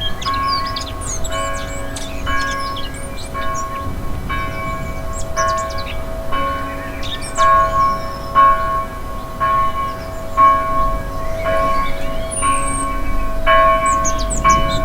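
Church bell tolling evenly, about one stroke a second, its ring carrying on between strokes, with small birds chirping and twittering.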